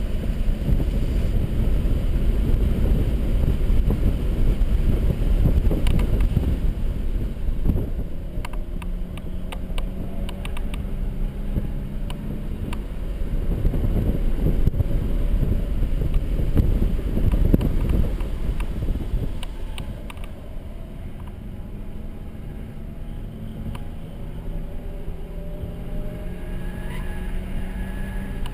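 Onboard sound of a Mercedes-Benz C300 lapping a track: engine note rising and falling with throttle and gear changes over a heavy rumble of road and wind noise. The car gets quieter about two-thirds of the way through.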